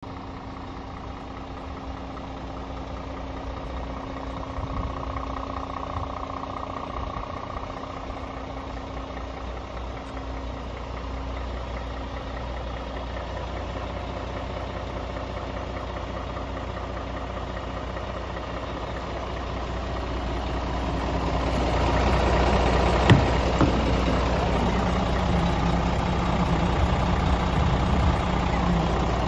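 Scania S450 tractor unit's 13-litre inline-six diesel idling steadily, growing louder about two-thirds of the way through. A single sharp click sounds shortly after.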